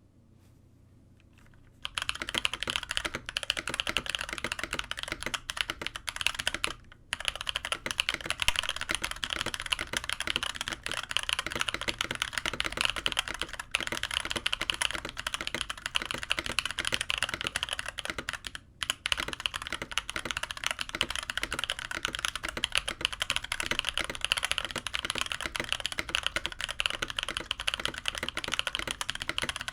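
Steady, fast typing on a custom KBD75v2 mechanical keyboard with an aluminium plate, lubed Holy Panda tactile switches, ePBT stabilizers and CRP APL keycaps: a dense stream of key clacks. The typing starts about two seconds in and stops briefly twice.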